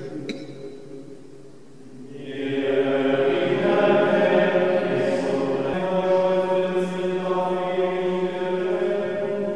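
Slow sacred chant: voices holding long, sustained notes. They fade a little at first and then swell back with new notes about two seconds in.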